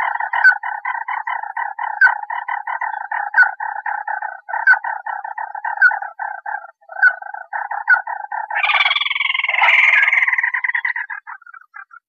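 Crake call of the kind used as a bird-trapping lure: a fast, even run of short clipped notes, about six a second, with a louder note every second or so. About eight and a half seconds in, a louder, harsher chattering call joins, then both tail off near the end.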